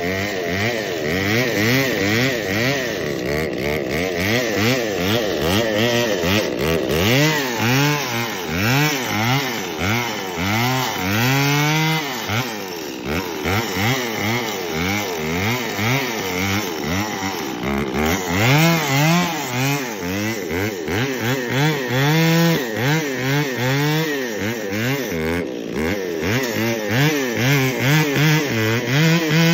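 Two-stroke chainsaw cutting into a tree stump, its engine pitch dropping and rising again over and over as it bogs down in the cut and revs back up.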